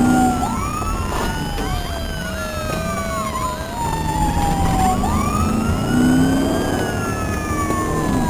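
Police car siren in a slow wail, the pitch climbing and falling twice, over engine and road noise during a high-speed pursuit.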